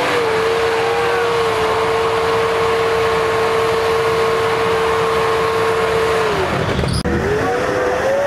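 Off-road 4x4's engine held at high, steady revs over a loud rushing noise; the revs fall away about six seconds in.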